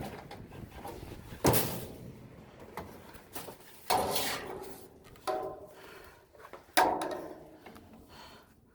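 A series of four sharp knocks or clunks, a second or two apart, the loudest ones followed by a short ringing.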